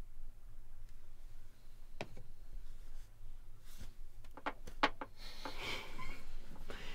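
Faint rustling of bedding and clothing, with a few small clicks and taps, the last of them in a quick cluster about four and a half seconds in, over a low steady hum.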